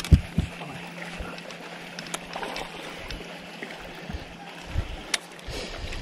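Water sloshing against an aluminium fishing boat under a steady low hum, with scattered short knocks and clicks of rod-and-reel handling as a hooked black bass is played to the boat.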